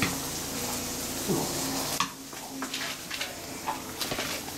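Poodle making one short, rising, whine-like vocal noise a little over a second in, over a steady hiss with scattered light clicks. The hiss drops away suddenly about halfway through.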